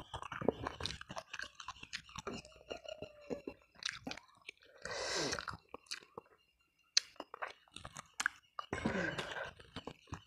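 Close-miked chewing of tender boiled chicken: a run of wet smacks and clicks from the mouth, with two longer, breathier stretches about five seconds in and near the end. There is a short pause about six seconds in.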